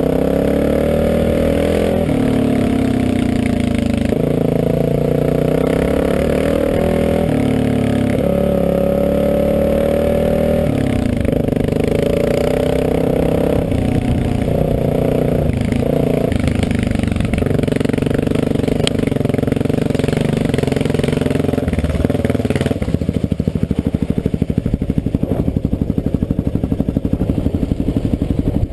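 Motorcycle engine running while riding a dirt road, its pitch rising and falling with throttle and gear changes. About 23 seconds in it drops to a low, even putter at low revs as the bike slows.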